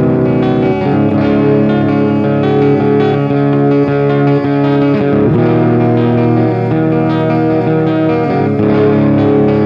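Electric guitar fitted with Ibanez STD C1-C2 humbucking pickups and tuned to drop C, played through an amp and effects. It plays a run of sustained chords and notes that change about every second, with no pauses.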